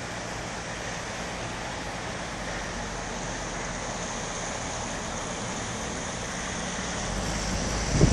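The flooded Water of Cruden rushing steadily. A low rumble builds in the last second.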